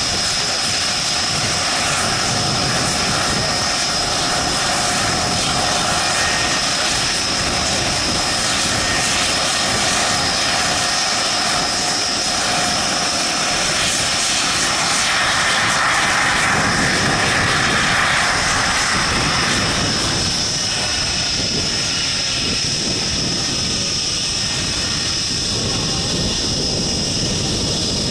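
AMX A-11 jet's Rolls-Royce Spey turbofan running at ground idle: a steady loud rushing noise with a high whine. About two-thirds through a broader rushing swell comes and goes, followed by faint, slowly falling tones.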